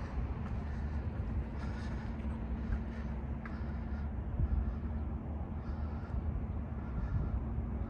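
Steady low rumble with a constant hum of running machinery, with a faint click about three and a half seconds in.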